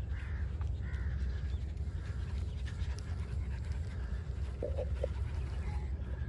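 A small dog panting as it runs up across the grass, over a steady low rumble.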